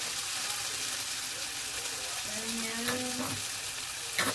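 Julienned potatoes and onion sizzling steadily as they stir-fry in a nonstick frying pan, with a short sharp clatter near the end.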